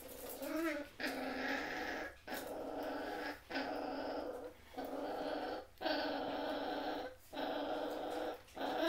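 Belgian Shepherd puppies growling while play-fighting: a brief yip about half a second in, then a string of about seven growls of roughly a second each, with short breaks between them.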